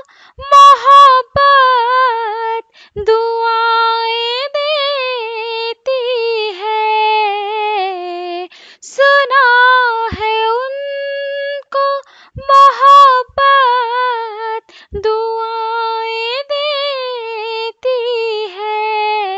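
A woman singing a line of an Urdu ghazal solo with no accompaniment, in long, gliding, ornamented phrases with short pauses between them.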